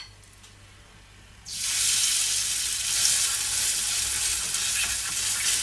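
Grated-potato pancake batter frying in hot oil in a pan. It is quiet for about a second and a half, then a sudden loud sizzle sets in as the batter goes into the oil, and it carries on steadily.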